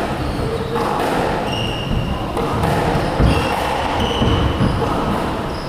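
Squash rally: the ball thudding off the walls and rackets, the loudest hit about three seconds in, with several short high squeaks of shoes on the wooden court floor.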